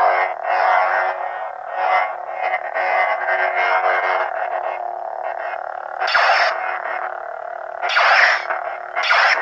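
Replica lightsaber's sound board playing its steady electronic hum through the hilt's small speaker, with louder swing swells about six and eight seconds in and again near the end as the blade is moved.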